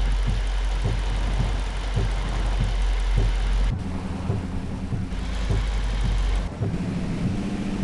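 Toyota Tundra pickup driving on a wet road: a steady low rumble of engine and tyres with a hiss of road noise. About four seconds in the hiss and the deepest rumble fall away and a steady engine drone comes through.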